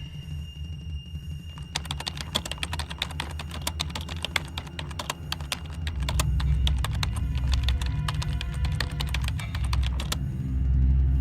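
Low droning background music, louder from about halfway, with a rapid, irregular run of computer-keyboard typing clicks starting about two seconds in and stopping shortly before the end.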